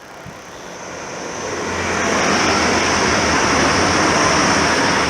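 A Hull Trains Class 180 Adelante diesel multiple unit passing through the station at speed. The rush of the train builds over the first two seconds and stays loud, with a steady high whine over a low engine hum.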